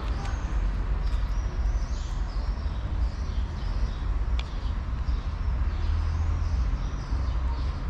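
A steady low rumble with small birds chirping over it again and again.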